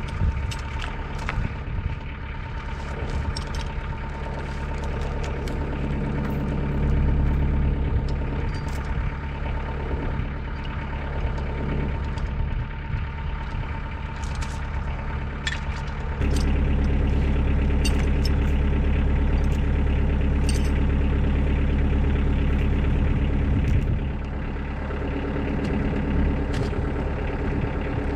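Kioti DK40 compact tractor's diesel engine running, with engine noise stepping up and getting louder a little past halfway, then easing back near the end. Scattered light clicks and knocks sound over it.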